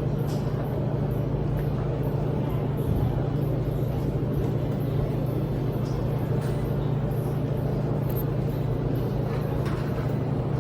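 Steady low hum of laundromat machines running, the drone of dryers and washers, with a few faint ticks over it.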